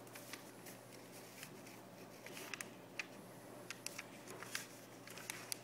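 A sheet of paper being folded and creased by hand: scattered crisp crinkles and rustles, with a faint low hum beneath.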